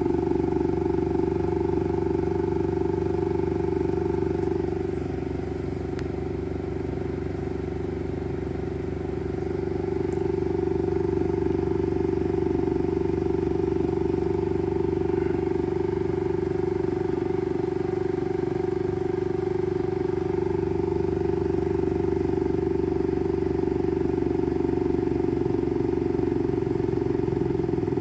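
Elegoo Saturn 4 Ultra 16K resin 3D printer's Z-axis stepper motor running steadily to drive the build platform: a steady, even-pitched mechanical whine, a little quieter for a few seconds before building back up, then cutting off suddenly at the end. It is the platform movement that the owner reports as a noise problem.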